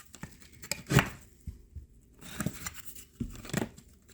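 Putty knife scraping and prying at ceiling drywall around a nail, with a few sharper scrapes and knocks among quieter scratching and crumbling.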